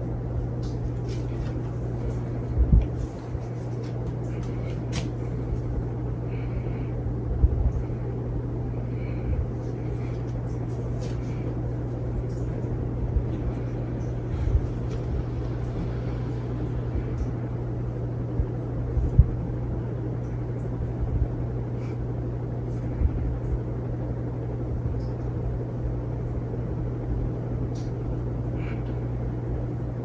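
Hunter 2nd Century Original ceiling fan running with four blades: a steady motor hum over the rush of moving air, with occasional short low thumps.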